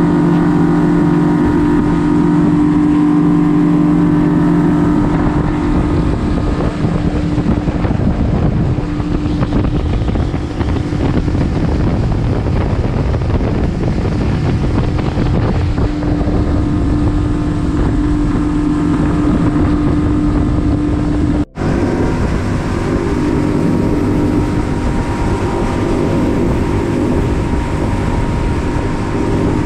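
Yamaha 300 hp four-stroke outboard running at speed with a steady drone, over the rush of water and wind as the boat planes. The sound drops out for an instant about two-thirds of the way through.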